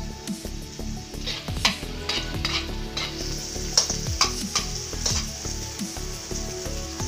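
Diced onion and garlic sizzling in hot oil in a metal wok, with a metal spatula scraping and stirring the pan in a run of quick strokes. The sizzle grows louder about a second in.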